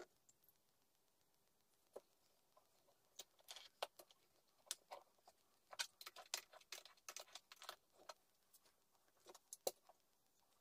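Faint, irregular short scrapes and light clicks of a knife blade worked in a sharpening jig against a whetstone, in clusters with quiet between.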